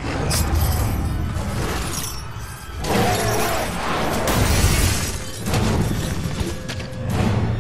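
Action-film fight sound mix: crashing, smashing impact effects over a deep rumbling dramatic score, loud throughout, with a dense crash about three to five seconds in.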